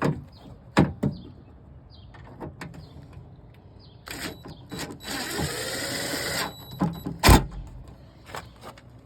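Drill with a Phillips bit driving a speaker screw for about a second and a half in the middle, its motor whine bending in pitch. Around it come several sharp clicks and knocks from handling the screws and speaker, the loudest a hard knock shortly after the drill stops.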